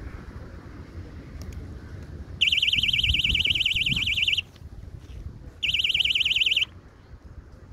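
Electronic alarm buzzer sounding a fast-warbling high tone in two bursts, the first about two seconds long and the second about one second.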